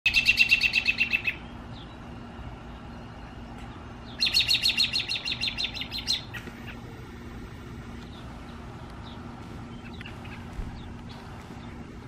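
American robin calling in two quick runs of sharp, rapidly repeated notes, the first about a second long and the second about two seconds long, slowing toward its end. It is a call the uploader takes for a warning to keep others away from a nearby nest or young.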